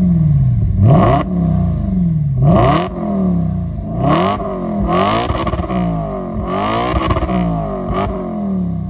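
Audi RS5 B8's 4.2-litre V8 revved repeatedly while stationary through an Akrapovic aftermarket exhaust: about six quick throttle blips, the pitch rising and falling back each time.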